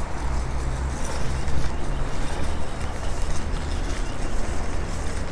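Outdoor city street ambience: a steady low rumble with no distinct events.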